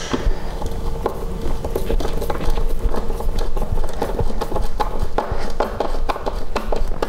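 Hand screwdriver driving screws through a bus bar into plywood: an irregular run of small clicks and creaks, several a second.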